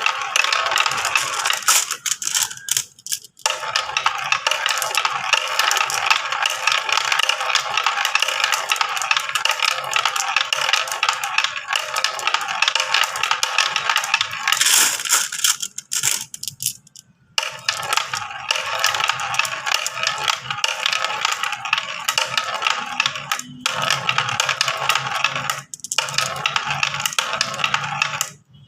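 Many marbles rolling and clattering down a marble-run track: a dense, continuous rattle of small clicks, with brief breaks about 3, 16 and 26 seconds in.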